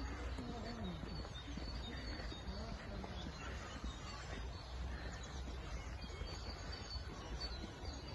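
Small birds chirping on and off, short high calls, with faint distant voices and a steady low rumble underneath.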